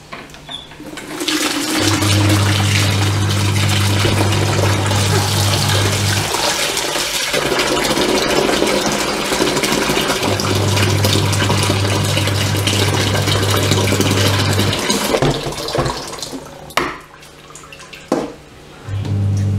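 Kitchen tap running hard into a large pot in a stainless steel sink, the water splashing as the pot fills, with a low hum that comes and goes. Near the end the flow dies down and there are two sharp knocks.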